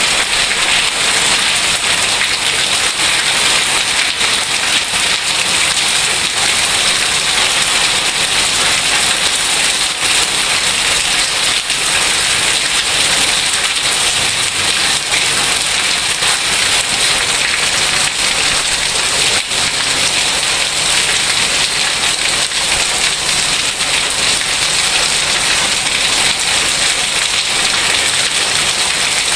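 Heavy rain falling steadily, an even, dense hiss of drops striking surfaces with faint scattered ticks.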